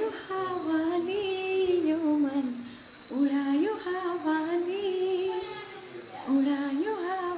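A woman singing a song unaccompanied, in three long, drawn-out phrases of held notes that slide up and down. A steady high insect drone runs behind her.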